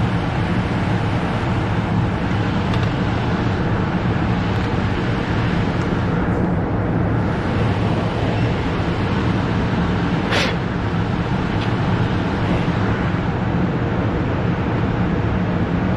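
Furnace running steadily, a constant blower rush over a low hum, with one brief click about ten seconds in. It keeps running with the thermostat off, which the technician puts down to a stuck relay on a bad control board.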